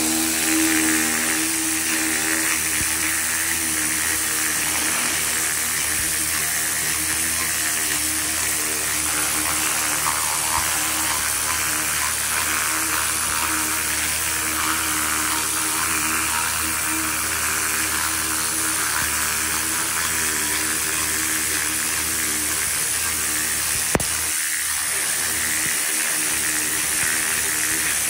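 Pressure washer spraying a high-pressure water jet onto a crosscut saw blade and rubber floor mat, blasting the softened paint off: a steady hiss with a steady hum underneath. A single sharp click comes near the end.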